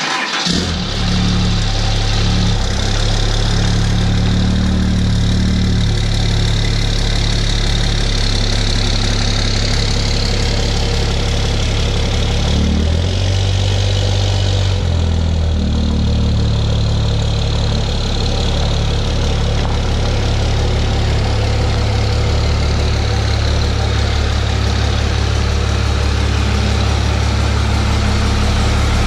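A 6.7-litre Cummins turbo-diesel pickup engine running steadily at low speed as the truck is driven, with a brief change in its tone about 13 seconds in.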